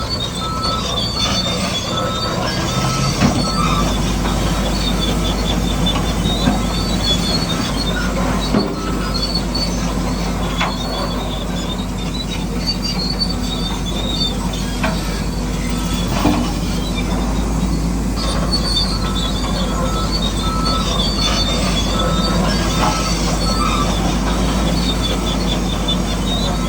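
Bulldozer at work: the diesel engine running steadily under the high, repeated metallic squeal and scattered clanks of its crawler tracks.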